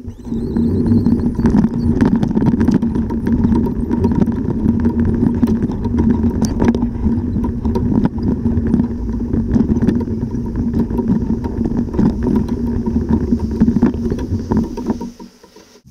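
Loaded fishing kayak being hauled over the ground: a steady rumble with rapid small rattles and clicks from the hull and gear, stopping about a second before the end.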